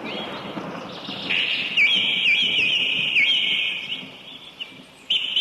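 Birds calling with high whistled notes that dip sharply in pitch and rise again, in two spells with a short lull between.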